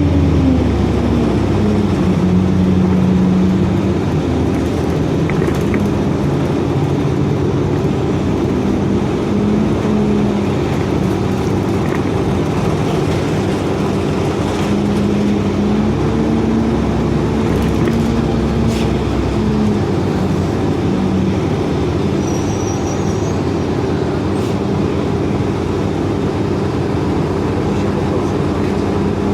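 Cabin sound inside a 2004 Orion VII hybrid-electric transit bus on the move: a steady drone of drivetrain and road noise, with humming tones that fall and shift in pitch as the bus changes speed. A brief high-pitched tone sounds about two-thirds of the way through.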